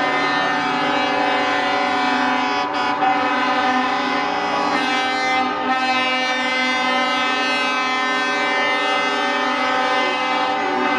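Truck air horns sounding together in one long, steady, many-toned blare.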